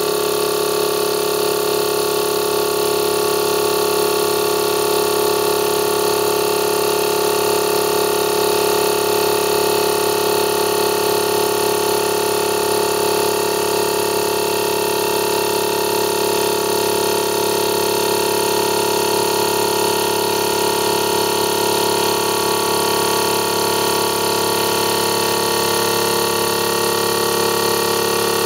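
12-volt DC reciprocating piston air compressor running continuously with a steady hum, filling its tank as the pressure climbs.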